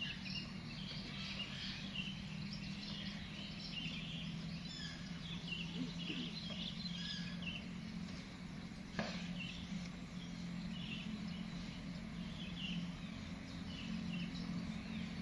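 Small birds chirping on and off over a steady low hum, with a single sharp click about nine seconds in.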